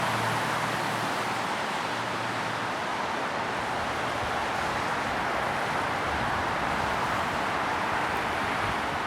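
Busy highway traffic in the rain: a steady hiss of tyres on wet road, with no horns sounding.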